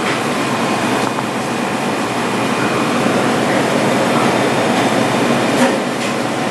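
Steady restaurant room noise, like ventilation hum, with a few light clicks about a second in and near the end.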